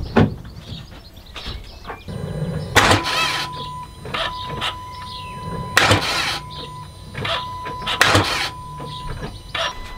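A Renault Trafic van's starter motor makes three brief attempts, each a loud burst of about half a second, a few seconds apart, and the engine does not catch: the battery, at about 11.4 V, is too flat to start it. A steady high beep comes and goes throughout.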